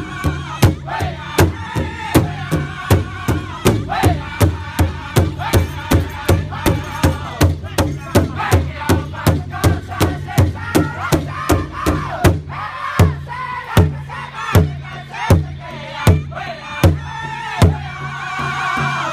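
Powwow drum group singing in unison around a shared big hide drum, all striking it together with beaters at about three beats a second. Past the middle the beat slows to heavier strokes a little under a second apart while the singing carries on.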